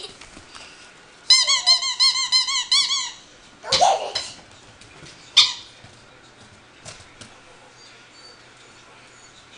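Squeaky toy squeaking in a fast run of about a dozen short, high, arching squeaks in under two seconds, followed by two short noisy bursts.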